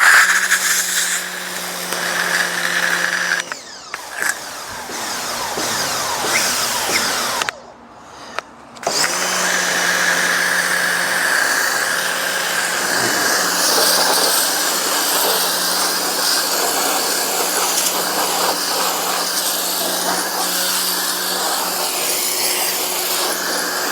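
Pressure washer running: a steady motor hum under the hiss of the water jet, stopping briefly twice and starting up again.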